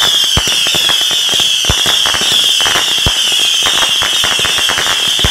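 Consumer fireworks firing in a rapid barrage: a dense run of cracks and pops with a few heavier booms among them. A continuous high whistle keeps sliding down in pitch over the top.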